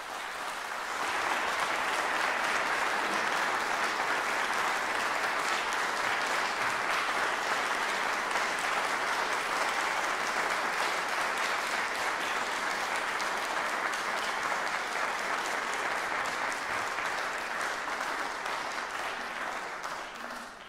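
Audience applauding: dense clapping that builds over the first second or two, holds steady, and dies away near the end.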